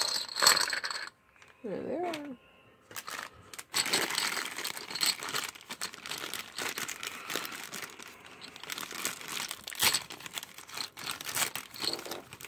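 Plastic Connect 4 checkers clicking and clattering against each other inside a thin plastic bag, with the bag crinkling as it is handled and opened. A burst of clatter comes at the start, then a lull, then steady crinkling with scattered clicks.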